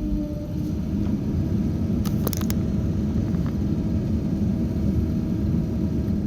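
Diesel engine of heavy earthmoving machinery, such as an excavator, running steadily with a deep rumble and a faint steady whine, with a short burst of sharp clicks about two seconds in.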